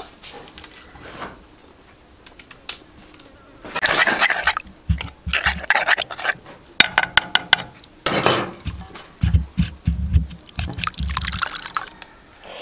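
Liquid chili dipping sauce being stirred and worked with a pestle in a wooden mortar: irregular wet sloshing and scraping, with a run of dull knocks from the pestle in the second half.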